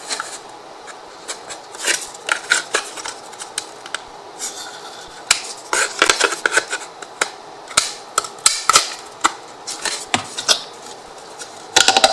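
Thin MDF wooden pieces being handled and fitted together: irregular light clicks and knocks as they tap against each other and the table, with some rubbing as they are slid into line, coming in quick clusters about a third of the way in, around two thirds through, and near the end.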